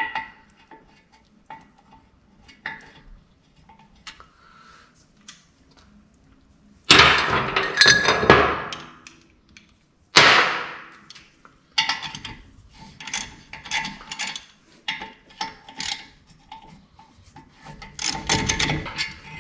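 Caliper-bracket bolts being broken loose with a long breaker bar and 19 mm socket: a sharp crack right at the start as a bolt lets go. This is followed by two loud metal clatters and scrapes of steel tools against the steel lift deck, about seven and ten seconds in. Then comes a run of quick light metallic clicks and clinks.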